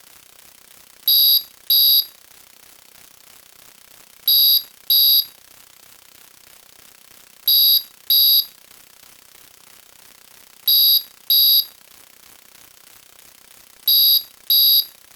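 Electronic alarm beeping in pairs: two short, high-pitched beeps about half a second apart, repeating about every three seconds, five times.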